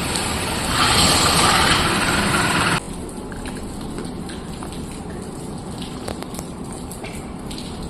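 Core cutter (core drilling machine) running, a steady noisy hiss that is louder for about the first three seconds, then drops suddenly to a quieter hiss with scattered light ticks.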